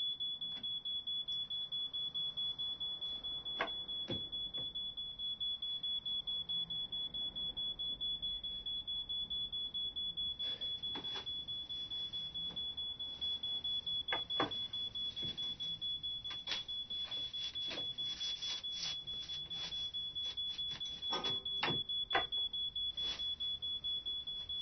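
A steady high-pitched electronic alarm-like tone, pulsing rapidly and evenly. Scattered sharp clicks and knocks sound over it, most of them in the second half.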